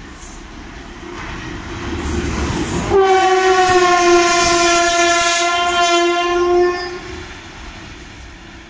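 WAP4 electric locomotive running through the station: its rumble grows louder as it comes close, then its horn sounds one long blast of about four seconds as it passes, and the train noise falls away once the horn stops.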